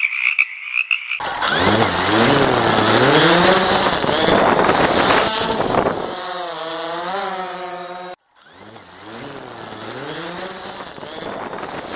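Frogs croaking in a steady chorus, then about a second in a quadcopter drone's propellers start up loud, their pitch swinging up and down as the motors adjust, settling into a steadier hum midway. The sound cuts out for a moment and the rising and falling motor pitch returns.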